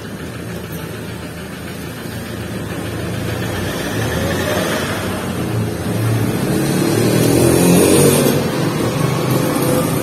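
A motor vehicle passing close by: engine and road noise growing steadily louder to a peak about eight seconds in, then easing off.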